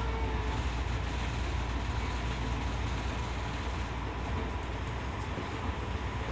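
Running noise inside a Tokyo Metro 10000 series electric train car at speed: a steady low rumble of wheels on rail, with a faint steady high tone.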